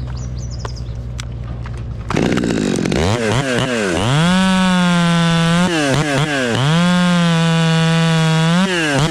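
Chainsaw idling, then throttled up about two seconds in and run at full speed, its pitch dipping and recovering twice.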